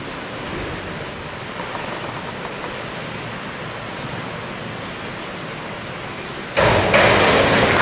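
Steady hiss of an indoor pool hall's background noise, then, about six and a half seconds in, a sudden loud burst of spectators clapping and cheering for a competition springboard dive.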